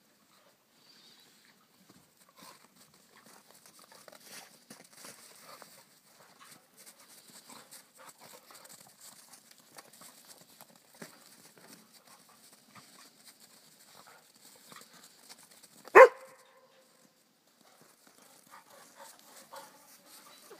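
Two dogs, a Norwegian Elkhound and another dog, play-fighting: faint scuffling sounds throughout, with one sharp, loud bark about three quarters of the way through.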